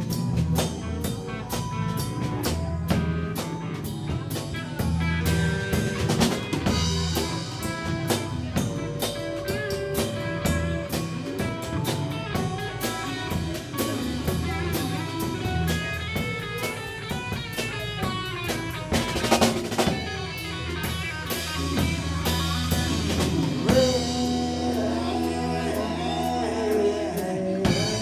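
Live band playing: electric guitars over a drum kit keeping a steady beat.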